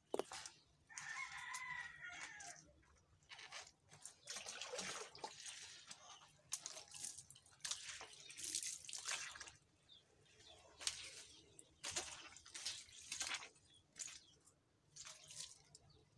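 Water poured from a plastic dipper splashing over skin and onto the ground, in repeated pours every second or two. A rooster crows once, about a second in.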